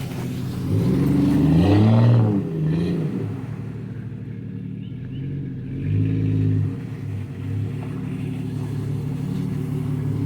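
An engine running steadily, revved up and back down about two seconds in and again around six seconds.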